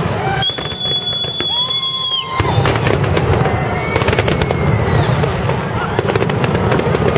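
A large fireworks display: shells bursting with bangs and crackling, which turn into a dense, rapid barrage about two and a half seconds in. In the first two seconds, high held whistling tones that drop in pitch at their ends sound over the bursts.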